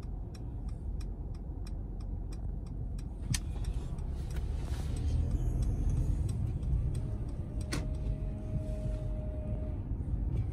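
Car cabin noise while driving: a steady low road rumble. A run of light ticks, about four a second, goes on through the first three seconds, and two sharp clicks come later.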